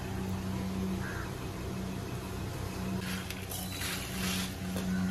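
A steady low mechanical hum, with a steel ladle scraping and tipping roasted dried red chillies and seeds out of a steel pan, rustling from about three seconds in.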